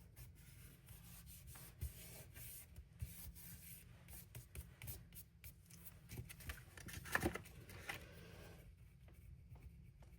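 Faint scratching and rubbing with many small taps and clicks: hands working card stock and stamping supplies on a craft table. There is a slightly louder scrape about 7 seconds in.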